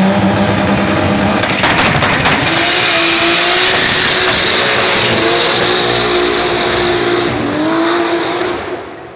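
A 1000 hp Chevrolet Opala drag car doing a burnout: the engine is held at high revs while the rear tyres spin and squeal, with a burst of crackles about two seconds in. The sound fades away near the end.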